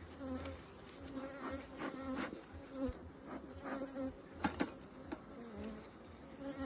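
Honeybees buzzing around an open hive, single bees droning close past in passes that rise and fade. Two sharp knocks about four and a half seconds in.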